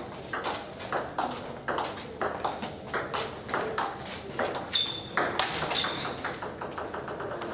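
Table tennis rally: the celluloid-type ball clicking off the rubber rackets and bouncing on the Donic table, about two hits or bounces a second without a break.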